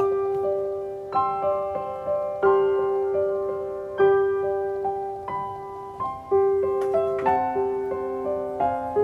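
Background piano music: a simple melody of single struck notes, each left to ring and fade.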